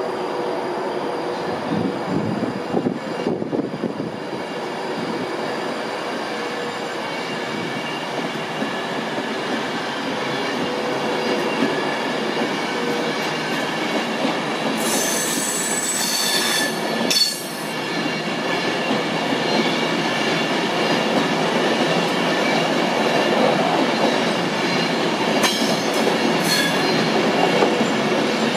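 Avanti West Coast Class 390 Pendolino electric train running past on the platform line: a steady rumble of wheels on rail under several high steady tones. Short, sharp squeals from the wheels come about halfway through and again near the end.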